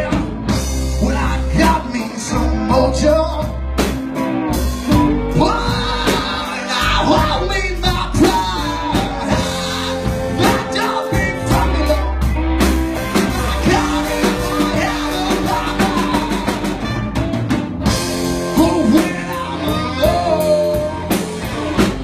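Live blues-rock band playing: electric guitars and drum kit with cymbals, with trumpet and saxophone joining in.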